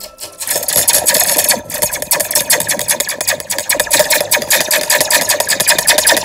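A handmade paper-cup noisemaker giving a loud, rasping buzz made of a fast, even run of scraping pulses, as something is rubbed against it. The buzz starts about half a second in.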